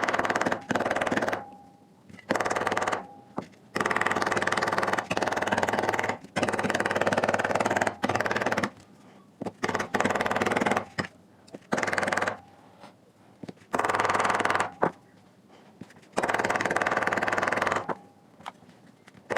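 Repeated bursts of rapid mechanical rattling, each a second or two long with short pauses between, as a dent in the speaker's metal grille is worked out.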